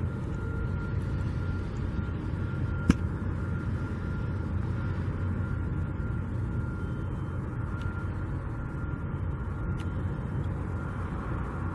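Steady low rumble of distant engines and machinery on a construction site, with a thin steady whine over it and one sharp click about three seconds in.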